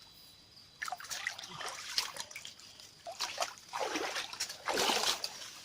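Shallow river water splashing and trickling in irregular bursts, with two louder splashes near the end.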